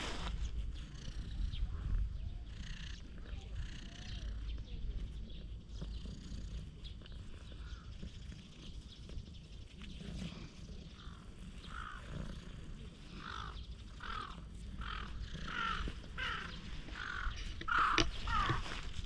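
A series of short animal calls, about two a second, starting about halfway through and growing louder near the end, over a low steady rumble.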